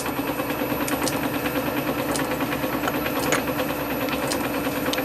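A workshop machine motor humming steadily with a fast, even pulse, with a few light clicks as metal parts are handled.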